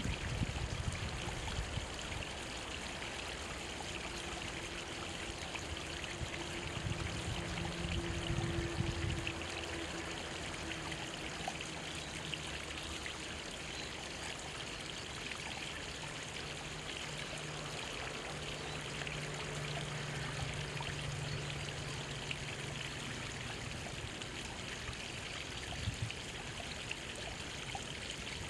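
Small mountain stream trickling and splashing between rocks, a steady even flow.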